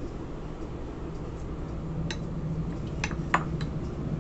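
A few light clicks of a metal spoon against a glass plate as chicken pieces are spooned out, the sharpest near the end, over a low steady hum.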